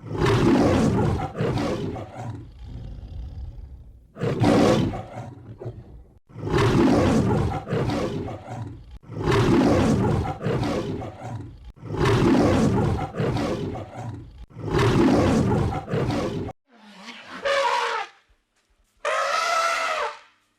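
Lion roaring: a series of long, deep roars, one every two seconds or so. Near the end come two shorter, high, brassy calls: an elephant trumpeting.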